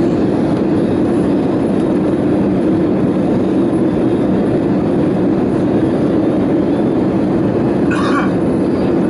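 Steady roar of an Airbus A320 cabin in flight: engine and airflow noise with no change in level. A brief higher-pitched sound is heard about eight seconds in.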